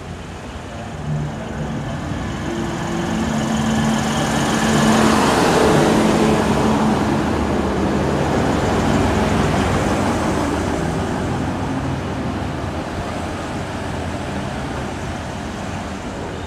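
NSW TrainLink Hunter railcar, a diesel multiple unit, running past close by: its diesel engine tone and rail noise swell to a peak about five seconds in, then slowly fade as it moves away.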